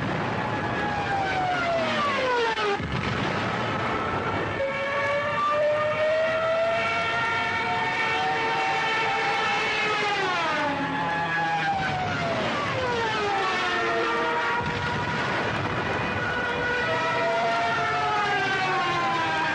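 Aircraft engines droning as several planes pass, the pitch sliding down again and again as each one goes by.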